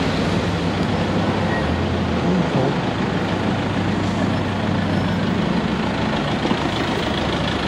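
Steady car engine hum with road noise, moving slowly in light traffic.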